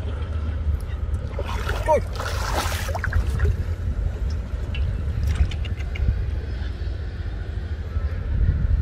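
Steady low wind rumble on the microphone, with a short burst of splashing water about two seconds in as a fishing net is pulled up through shallow water.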